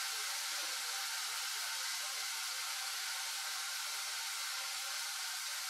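Onion and garlic sauteing in olive oil in a saucepan, giving a soft, steady sizzle.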